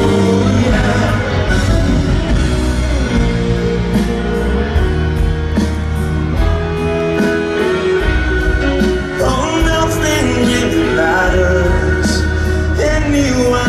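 Live rock band playing, with drums, bass and sustained guitar or keyboard notes under singing that slides between notes about two-thirds of the way through. It comes from a large stadium PA, heard from among the audience.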